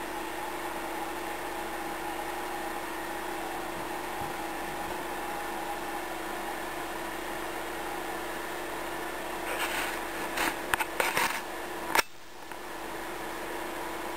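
Steady mechanical hum with a few held tones. A cluster of short scratchy noises comes about ten seconds in, then a sharp click about twelve seconds in, after which the hum is quieter.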